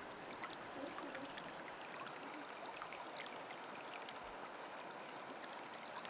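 Tap water running steadily into a sink, with faint small splashes.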